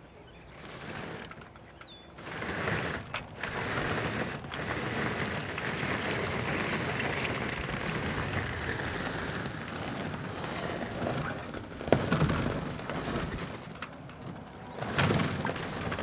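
Wooden-framed chicken tractor dragged by rope across wet clover, a steady rushing scrape of grass under the frame that starts about two seconds in, with a couple of knocks near the end.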